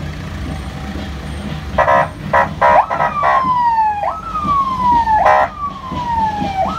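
A vehicle siren sounding a repeating sweep that jumps up sharply and slides slowly down, starting about three seconds in, after a quick run of horn honks, with more honking near the end, all over the low rumble of passing vehicle engines in a slow convoy.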